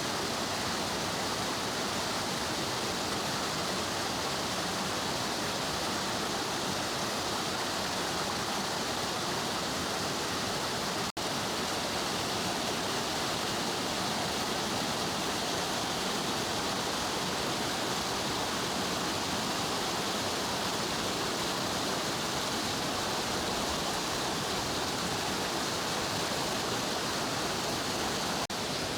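Mountain stream water rushing in a steady, full hiss. It breaks off for an instant about eleven seconds in and again near the end.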